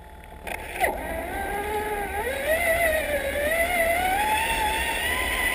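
Electric motor and gearbox of a Traxxas Summit RC truck whining as it drives. It drops nearly out and clicks within the first second, then comes back, its pitch wavering and slowly climbing with the throttle.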